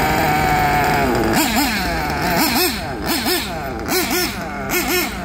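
Glow-fuel (nitro) engine of a 1/8-scale RC buggy running steadily at a high pitch, dropping back about a second in, then revved in quick throttle blips, the revs rising and falling about twice a second.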